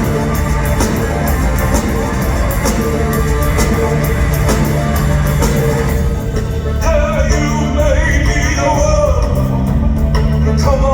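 Live rock band playing, with drums, cymbals and bass. The vocals come in about seven seconds in.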